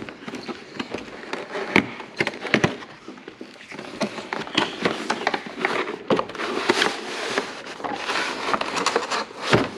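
Cardboard-and-plastic packaging of a trading-card collection box crinkling and crackling as it is handled and opened by hand: many sharp crackles and clicks, denser in the second half.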